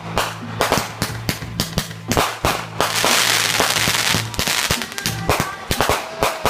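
Fireworks going off: a fast, irregular run of sharp bangs and crackles, with a dense hissing crackle lasting about a second near the middle.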